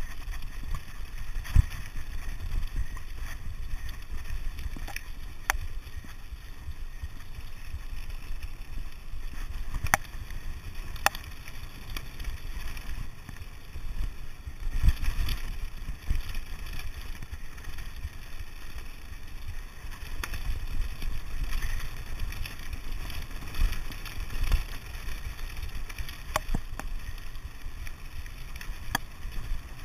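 Mountain bike running fast down a loose stone track: a steady rumble of tyres on gravel with wind buffeting the microphone, broken by sharp knocks and rattles as the bike strikes stones.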